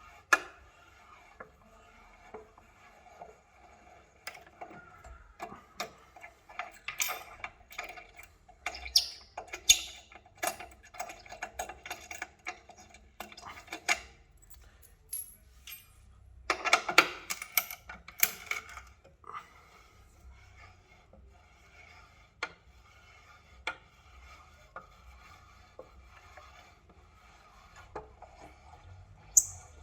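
Metal tools and steel bolts clinking and clattering: a hex bit and wrench being worked on, and bolts handled from, the hanger of an electric unicycle. Scattered sharp clicks and knocks, with two busier stretches a quarter of the way in and just past the middle.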